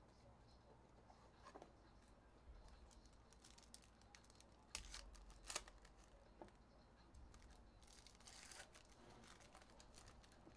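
Faint crinkling and tearing of a foil Panini Contenders football card pack wrapper being ripped open by hand, with a few light taps and clicks of handling, loudest about five seconds in and again near the end.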